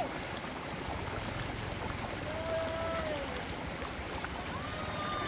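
Steady rush of flowing stream water, with a short voiced call about halfway through.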